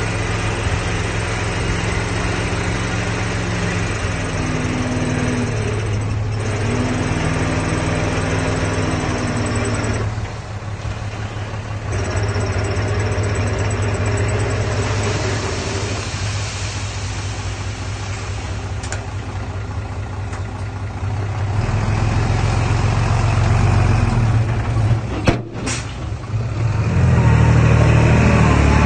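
Heavy machine's diesel engine running, its pitch shifting several times as the load changes. It dips briefly about ten seconds in, a single sharp knock comes near the end, and the engine then gets louder in the last couple of seconds.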